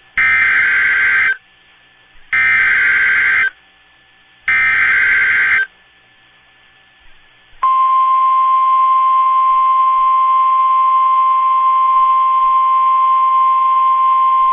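NOAA Weather Radio Emergency Alert System signal: three loud data bursts of SAME header tones, each about a second long with about a second between them, then a steady single-pitch 1050 Hz warning alarm tone that starts about halfway through and holds. This header and alarm tone mark the start of a new warning broadcast.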